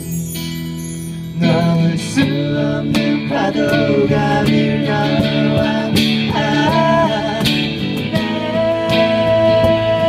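Live acoustic band music: strummed acoustic guitar, a cajon beating time from about a second and a half in, and a voice singing the melody, holding one long note near the end. A shimmer of bar chimes rings out at the very start.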